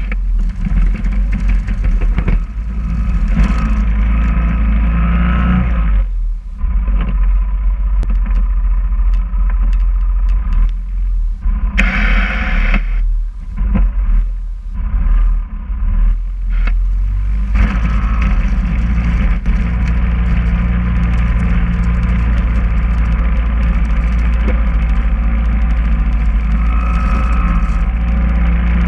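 A 2011 Yamaha Kodiak ATV's engine running under load while pushing snow with a front plow blade, easing off and picking up again several times in the first half, then running steadily from about two-thirds of the way through. Clatter and scraping from the plow blade.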